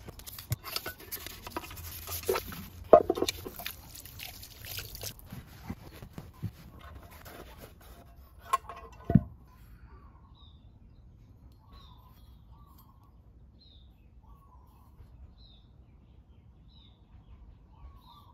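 Wet scrubbing and rubbing on an aluminium scooter CVT cover, with scattered clicks and knocks, the loudest about three and nine seconds in. After about ten seconds it goes quiet apart from faint bird chirps repeating every second or two.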